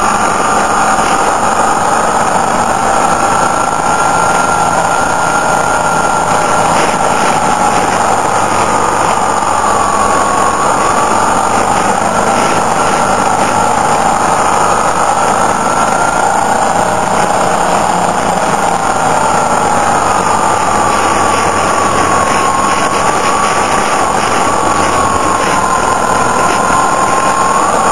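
Motorcycle riding on a winding mountain road, heard from on board: the engine runs steadily under a constant rush of wind, and its pitch rises and falls gently with speed through the bends.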